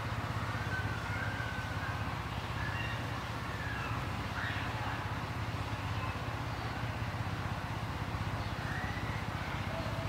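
Steady low motor hum, with a few faint short chirps over it.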